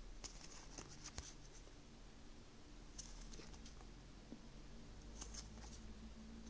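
Small cardboard game cards being slid one at a time off a hand-held deck: faint flicking rustles in three short clusters, near the start, about three seconds in and about five seconds in.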